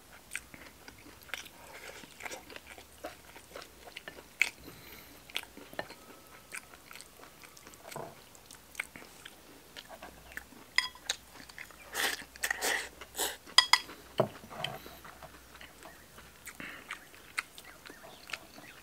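Close-up chewing of a mouthful of rice and stir-fried bolete mushroom, with wet mouth noises and the light clicks of wooden chopsticks against a porcelain rice bowl. A louder cluster of clicks comes about two-thirds of the way through.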